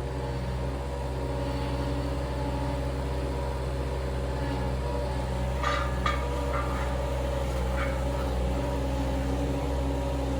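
Skid steer engine running steadily, with a few short clanks about six seconds in.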